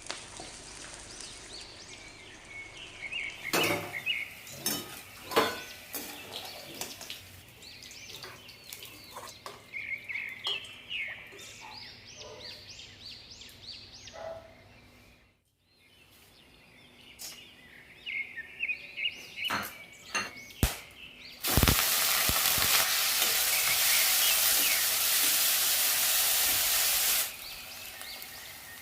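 Food frying in a pan, with scattered clicks and scrapes of stirring. About three-quarters of the way in, a loud steady sizzle starts suddenly and cuts off about six seconds later.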